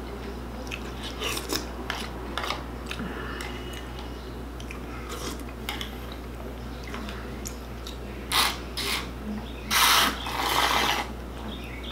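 A plastic spoon clicking and scraping against a plastic cereal bowl as cereal is eaten, with crunchy chewing. Near the end, a few loud slurps as the milk is drunk straight from the bowl.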